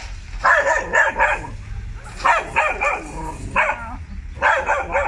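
A dog shut in a wire crate barking in quick runs of several barks, four runs in about five seconds.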